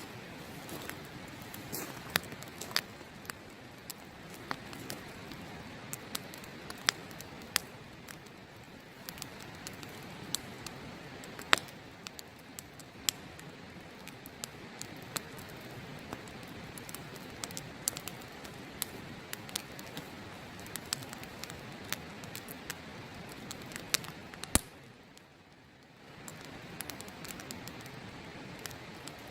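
Open wood fire crackling, with frequent irregular sharp snaps and pops over a steady rushing background of river water. The background drops out for about a second near the end, then resumes.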